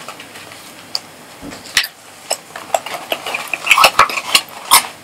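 Stiff cardstock box being folded and pressed shut by hand: sharp crinkles and clicks of card, sparse at first and coming thick and fast over the last two seconds.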